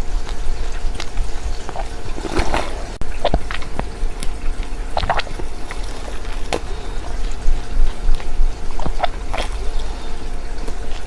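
Wet clicking and smacking sounds of seeds being chewed and eaten, scattered irregularly over a steady low hum.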